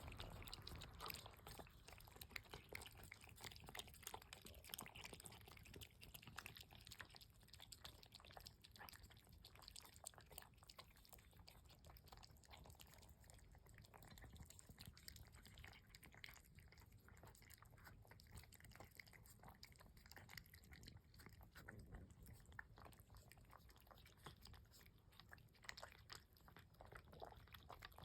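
Three cats eating, with faint, rapid crunching and chewing of their food.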